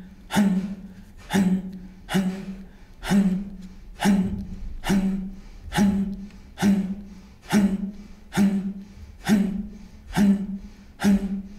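Kapalabhati breathing: a person pumps out forceful exhalations in a steady rhythm, a little under one a second. Each is a sharp puff of breath carrying a short voiced sound, followed by a quiet passive inhale.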